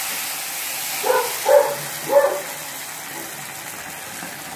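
Hot ghee tempering with bay leaves and kasuri methi sizzling as it hits the simmering chicken gravy, the hiss slowly dying down. About a second in, three short barks come in quick succession.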